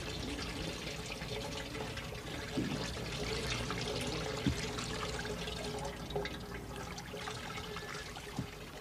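Liquid pouring from an enamel bowl and trickling over a flat surface, with many small drips and crackles throughout.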